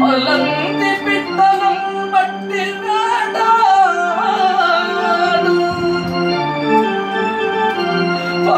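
Electronic keyboard holding chords under a male voice singing a long, ornamented melodic line without clear words: the drawn-out melismatic elaboration of a Telugu stage padyam.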